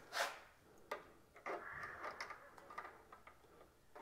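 Faint handling noise from small 3D-printed plastic light brackets at a truck grille: a soft rustle at the start, then scattered light plastic clicks and ticks.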